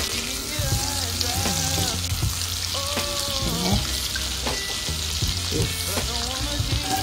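Minced garlic frying in melted butter in a nonstick frying pan: a steady sizzle with fine crackles.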